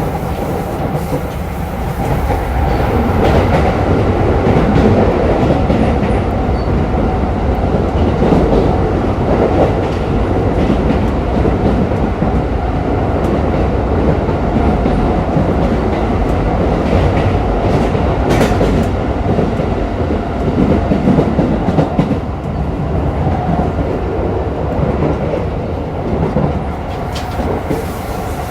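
Keikyu New 1000 series (1890 subseries) electric train running at speed, heard from inside a motor car: steady wheel and rail noise with a few sharp clicks from rail joints.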